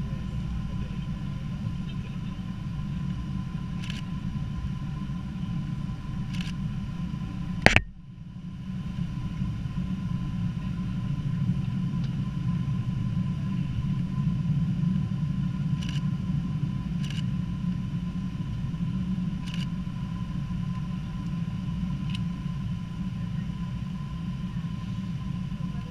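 Boeing 777 cabin noise: a steady low rumble with a thin, even whine above it. A single sharp, loud click comes about eight seconds in, and the sound drops off briefly after it before the rumble returns.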